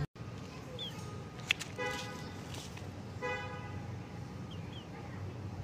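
A vehicle horn toots twice in short blasts about a second apart, over steady background noise. A few faint high chirps come from birds.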